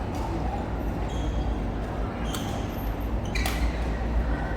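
Badminton rackets striking a goose-feather shuttlecock during a rally: three sharp hits, with short squeaks of shoes on the court floor between them.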